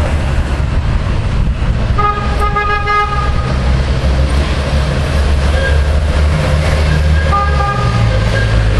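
A car horn sounds two held toots, each about a second and a half long, the first about two seconds in and the second near the end. Beneath them runs the steady low rumble of car engines idling in a queue of traffic.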